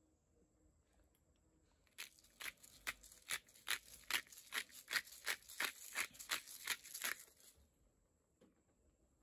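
Hand-twisted pepper grinder grinding black pepper, a run of sharp rasping strokes at about two and a half a second, for about five seconds.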